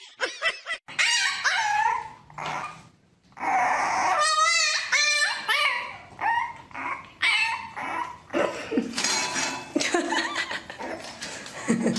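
French bulldog puppy whining and yipping, a run of high pitched cries with one long wavering cry about four seconds in.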